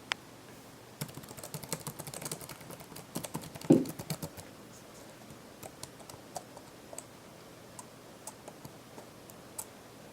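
Typing on an Asus K43SJ laptop keyboard. A fast run of key clicks with one louder thump partway through, then slower, scattered single keystrokes.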